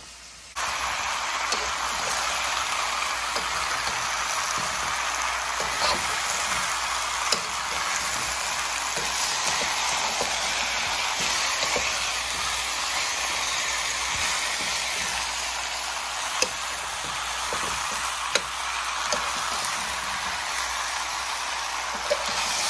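Cut vegetables (carrot, potato and root pieces with chopped greens) sizzling in oil in a pan, a steady sizzle that starts abruptly about half a second in. Occasional short clicks of a spatula stirring them.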